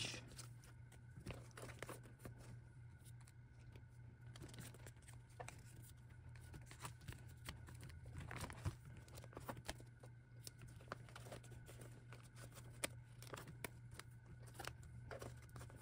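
Faint rustling and crinkling of plastic photocard sleeves and binder pocket pages as cards are pulled out of sleeves and slid into the pockets, with scattered small taps.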